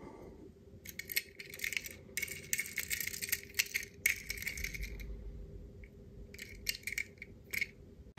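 Faint scattered clicks and small rattles of a die-cast metal toy car being handled and turned over in the fingers, over a faint steady hum.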